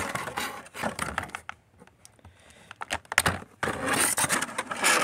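Clear plastic packaging tray crinkling and scraping against a cardboard box as an action figure is worked out of it, with irregular rustles, scrapes and small knocks that grow loudest in the last second or so.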